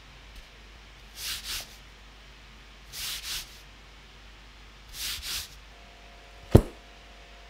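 Fingers brushing back and forth over the soft velvet-like lining inside a hard-shell microphone case: three pairs of short hissy strokes. A single sharp knock comes near the end.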